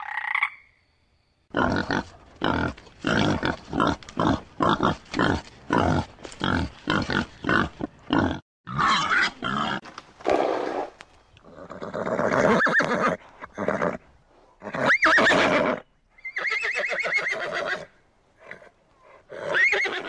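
Horse vocalising: a quick, even run of short snorting calls, about three a second, then several longer neighs, one of them rising sharply in pitch.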